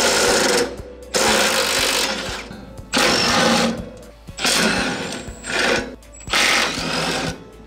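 Cordless impact driver hammering out hood-hinge bolts in repeated bursts of about a second each, with short pauses between bolts.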